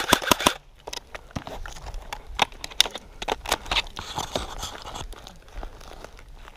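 An airsoft rifle's rapid full-auto burst cuts off about half a second in. Then come irregular crunching and crackling of footsteps and movement in dry undergrowth.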